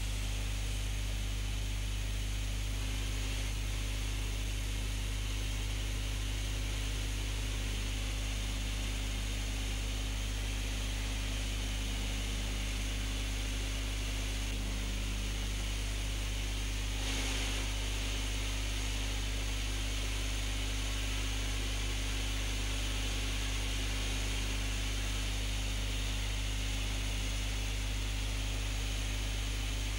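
Steady low mains hum with hiss from an old videotape recording, and no other sound.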